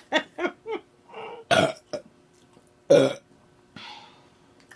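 A person belching loudly twice, about a second and a half apart, the second belch the louder and deeper. A quick run of short vocal sounds comes just before, near the start.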